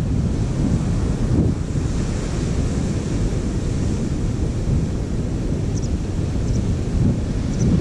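Wind buffeting the microphone in a steady low rumble that swells in gusts, over the wash of waves breaking on a sandy beach.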